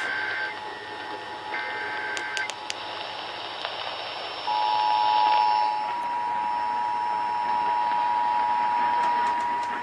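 Emergency Alert System test over radio hiss: two short bursts of the digital SAME header's screeching two-tone data in the first couple of seconds. About four and a half seconds in, the steady two-tone EAS attention signal starts and holds.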